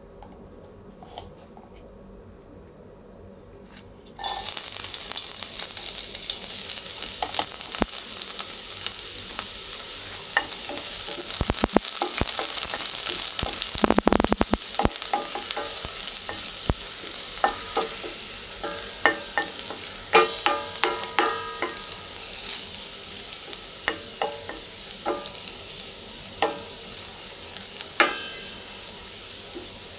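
Chopped garlic frying in hot oil in a stainless steel pan, sizzling loudly from about four seconds in. It is stirred with a wooden spatula that knocks and scrapes against the pan many times in the second half.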